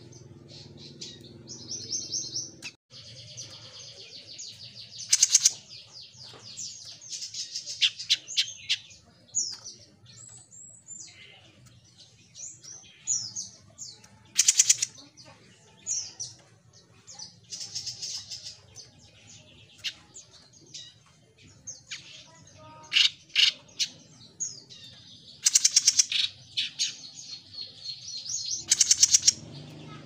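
A caged jenggot mini songbird singing in loud, high-pitched chattering phrases and rapid trills, phrase after phrase with short gaps between, its loudest outbursts a few seconds apart. A faint steady hum lies underneath.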